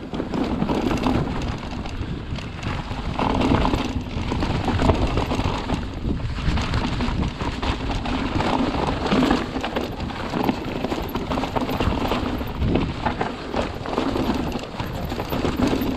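Haibike XDURO Nduro e-mountain bike rattling and clattering over a rough, rocky trail on a downhill run: a steady run of short knocks from tyres, suspension and frame hitting rocks and roots.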